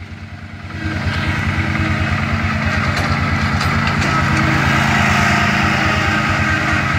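Zero-turn riding mower running at speed with its blades cutting grass and weeds; the engine's steady, even beat grows louder about a second in and then holds.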